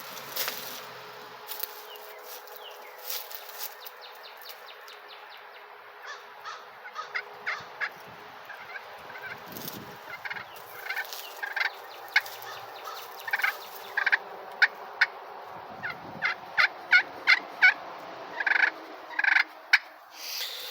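Slate pot turkey call with a mahogany pot, worked with a striker to make soft purrs: a steady rolling rasp. From about six seconds in, short sharp clucks come in among the purring, about one a second and louder near the end.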